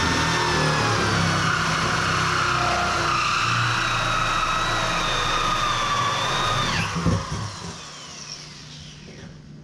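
Corded drill running under load with a round cutter pressed into the side of a steel fuel tank, the opening for a fuel sump: a loud screeching whine that wavers in pitch. It stops about seven seconds in with a clunk, and the tank rings briefly as it fades.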